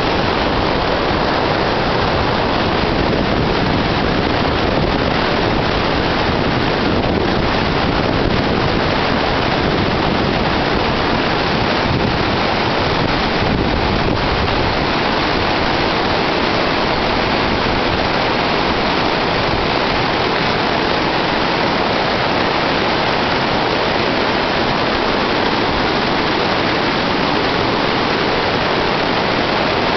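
Whitewater of a small tributary stream's falls rushing over rocks, running high: a loud, steady rush of water.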